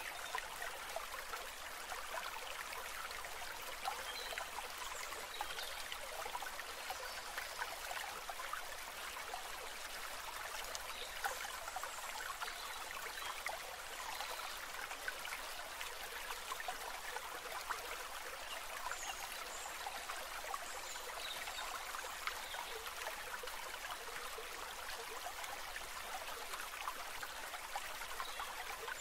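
A steady, even rushing hiss, like running water, with no breaks.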